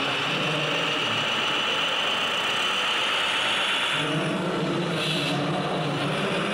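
Radio-controlled scale model trucks running, their onboard sound units giving a simulated diesel engine note over a steady high whine from the drive. About four seconds in the sound changes, a fuller engine note coming in as the high whine drops away.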